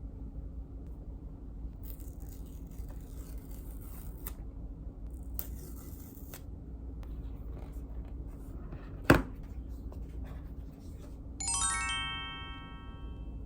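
Packaging being handled during a phone unboxing: two short papery rustles, then one sharp click, followed by a bright ringing tone that fades over about two seconds, over a steady low hum.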